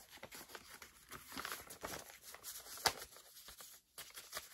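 Paper and card rustling and crinkling as mail is handled, with one sharp tap about three seconds in.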